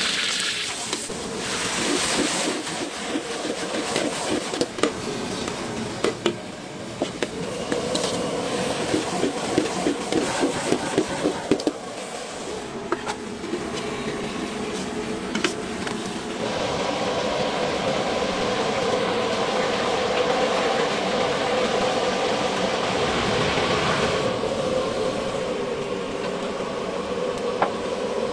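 Gas wok burner running with food sizzling in the wok. A steel ladle strikes and scrapes the wok in quick strokes, about four a second, around ten seconds in. A louder hiss of frying and steam sets in about sixteen seconds in and eases off near the end.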